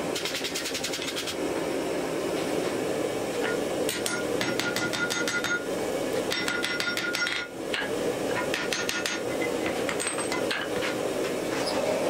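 Hand hammer striking red-hot axe steel on an anvil in several quick runs of blows, the anvil ringing with each strike, over a steady rushing noise.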